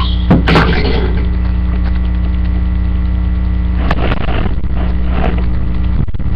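Loud, steady electrical mains hum picked up by the webcam's microphone. A few short knocks and rustles come over it, about half a second in and again around four to five seconds, as the webcam is handled and moved.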